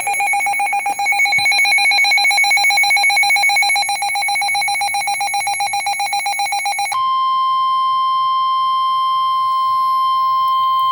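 Emergency alert tones. A rapidly pulsing electronic alert beep sounds for about seven seconds, then switches abruptly to a steady single-pitch warning alarm tone of the NOAA Weather Radio kind. The tones announce that a new warning is about to be read.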